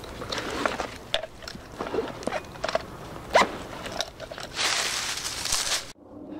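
Irregular crunching, clicking and rustling handling noise, with a sharp knock about three and a half seconds in and a longer hissing rustle near the end that cuts off suddenly.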